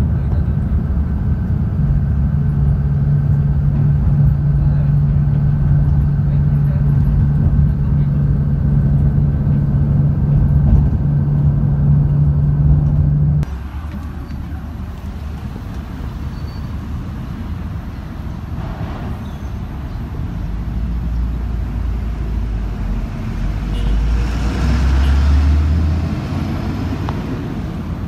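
City bus engine droning steadily, heard from inside the passenger cabin. About halfway through it cuts off abruptly and gives way to quieter road-traffic noise, with a vehicle passing more loudly near the end.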